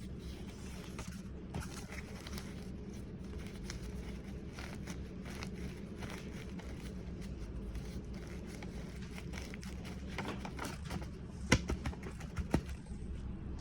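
Light crinkling and rustling of things being handled, over a steady low hum, with a few sharper clicks near the end.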